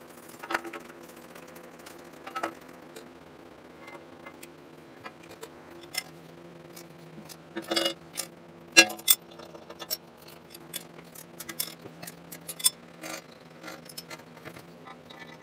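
Scattered metallic clinks, taps and knocks of hand tools on steel as the edges of a freshly milled steel angle plate are deburred, the loudest clatter about eight and nine seconds in. A steady machine hum runs underneath.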